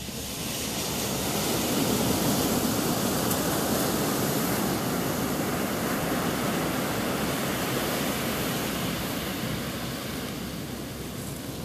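A steady rushing roar of noise that swells in over the first two seconds, holds, and eases slightly near the end.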